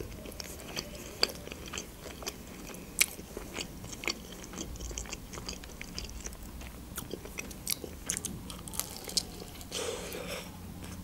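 Close-miked chewing of a homemade shawarma: soft wet mouth clicks and smacks scattered throughout, with a fresh bite into the wrap near the end.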